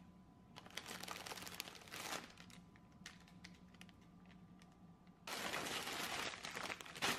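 Plastic snack wrappers and a woven plastic shopping bag crinkling and rustling as groceries are handled, with small clicks and crackles. It comes in two spells: a short one about a second in and a louder one near the end.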